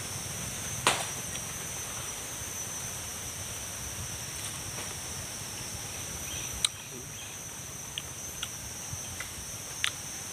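Steady high-pitched drone of insects, with a few sharp clicks from eating pineapple; the loudest click comes about a second in, and there are more near the end.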